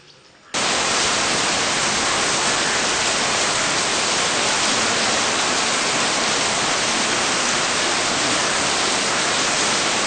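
A loud, steady hiss of noise that cuts in suddenly about half a second in.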